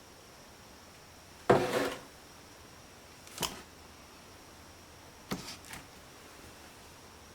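A sudden knock about a second and a half in that dies away over half a second, then a single sharp tap, and later two quick taps close together, over a faint steady hiss.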